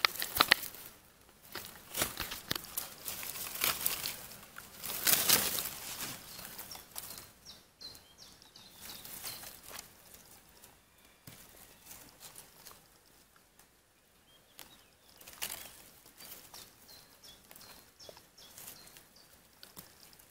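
Dry pine needles, twigs and leaf litter rustling and crackling as a hand brushes through the forest floor, in irregular bursts, loudest near the start and about five seconds in.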